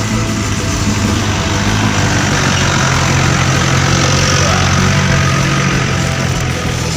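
Off-road jeep engine running steadily over a constant hiss, its note rising slightly about two seconds in.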